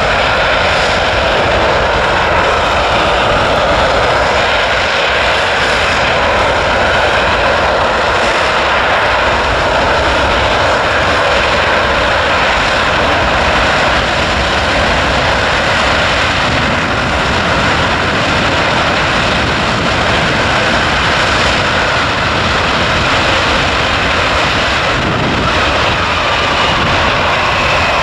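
Royal Australian Air Force C-17A Globemaster III's four Pratt & Whitney F117 turbofan engines running loud and steady as it taxis past close by. A faint whine drifts slightly in pitch within the jet noise.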